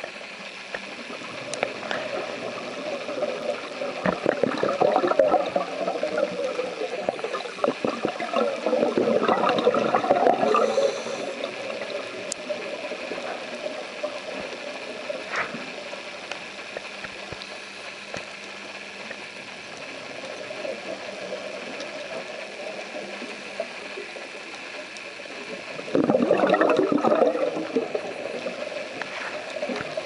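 Underwater, a scuba diver's exhaled breath bubbling out of the regulator in three gurgling bursts of a couple of seconds each: a few seconds in, again around ten seconds, and near the end. Between the exhalations there is a steady faint hiss with scattered clicks.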